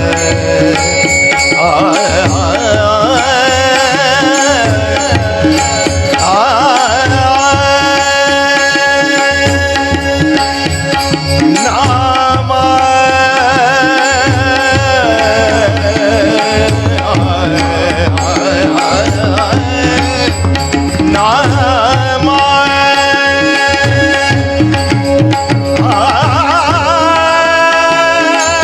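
Marathi abhang bhajan music: a melody line of wavering, ornamented notes and held tones over a steady hand-drum beat.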